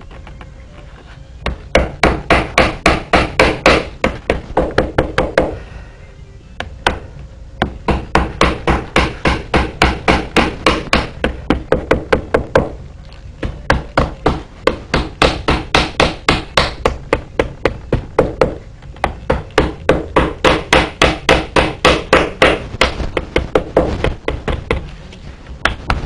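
A hammer tapping wet, heavy saddle-skirting leather around the bar of a saddle tree, working it into shape: quick, even taps about five a second, in several runs with short pauses between.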